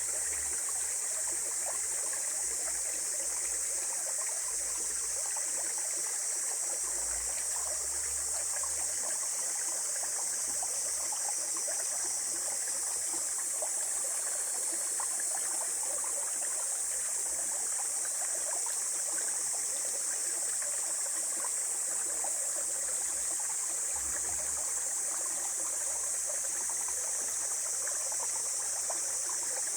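A small mountain stream flowing and babbling steadily over rocks, with a continuous high-pitched insect chorus over it.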